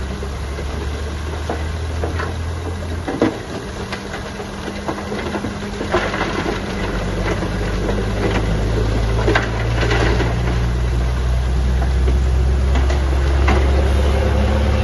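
Heavy diesel construction machine running steadily, its engine note changing about three seconds in and growing louder over the second half, with several sharp knocks through it.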